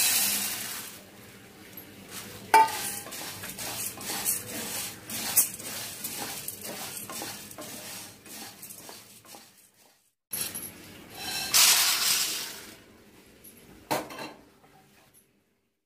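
Dry black peppercorns poured from a steel plate into a nonstick frying pan with a loud rattling rush, then stirred with a wooden spatula as they roast in a spoonful of oil, with many small clicks and scrapes against the pan. After a brief gap comes a second loud rattling rush as the roasted peppercorns are tipped into a steel plate, and a single knock near the end.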